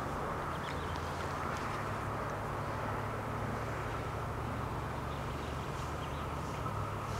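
Level-crossing warning bells ringing continuously while the barriers are down, over a low steady hum from the approaching train.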